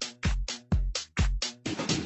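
Electronic dance music: a steady drum-machine kick about two beats a second, each kick paired with a bright hit, breaking into a busier wash of sound near the end.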